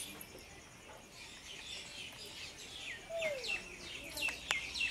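Small birds chirping: a run of short, high, falling notes that grow busier in the second half, several a second, with one lower falling call about three seconds in.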